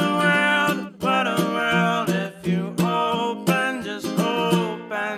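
Background song: a voice singing long held notes over strummed acoustic guitar.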